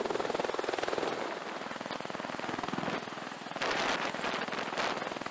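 V-22 Osprey tiltrotor hovering overhead, its proprotors beating in a rapid, even chop. About three and a half seconds in, a louder rushing noise swells for about a second.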